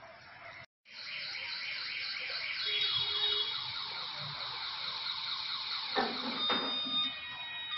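An electronic, alarm-like warble made of fast repeated high falling chirps. About six seconds in there is a knock, then steady high ringing tones.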